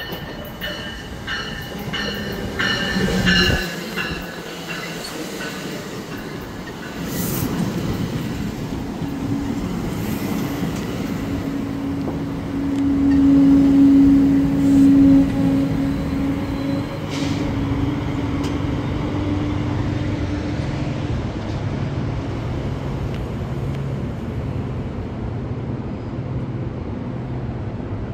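Exo commuter train of bilevel coaches pulling into the platform and coming to a stop: rapid clicking with a high ringing in the first few seconds, then a steady rumble of wheels on rail with a strong steady tone, loudest about halfway through as it slows. In the second half it settles to a low steady hum.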